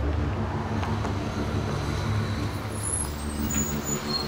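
Bus's diesel engine running steadily at a stop. A few short high-pitched squeaks come near the end.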